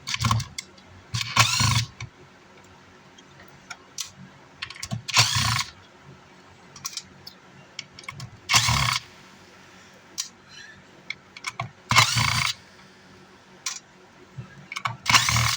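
Cordless power screwdriver backing screws out of a car amplifier's casing, running in short half-second bursts about six times, with small clicks and handling noise between the bursts.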